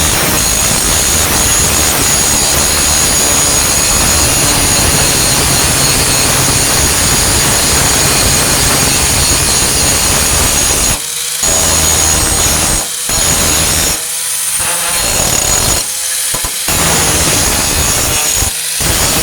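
Warrior 4-1/2 in. angle grinder with a Type 27 grinding disc grinding down flux-core welds on a steel tailgate patch, a steady harsh grinding noise with a high whine. In the last third the disc comes off the metal several times for a moment, leaving only the motor's whine, before biting back in.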